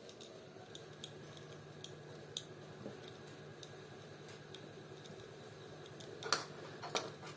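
Small sharp plastic clicks and taps as a pedometer's battery holder and case are handled and fitted, with two louder clicks near the end.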